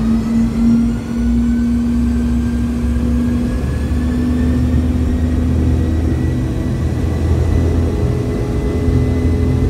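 Boeing 717's rear-mounted Rolls-Royce BR715 turbofan heard from inside the cabin: a steady low drone with a whine that rises slowly in pitch.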